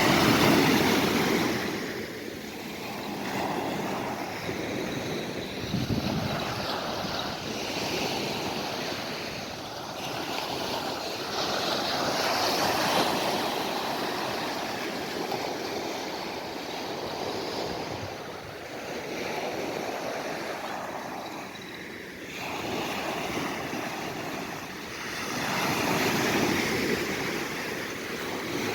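Sea waves washing onto the shore, the surf swelling and falling back every few seconds.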